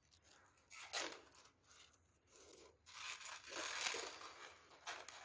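Handling noise as jewellery is moved about and a beaded necklace is lifted from a plastic drawer organiser: a brief rustle about a second in, then a longer stretch of rustling and light rattling.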